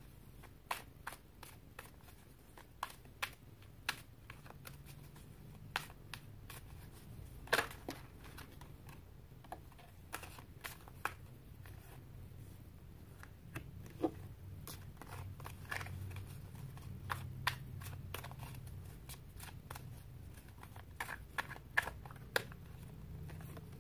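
Tarot cards being shuffled and handled by hand: a run of short, sharp, irregular card clicks and snaps over a faint low hum.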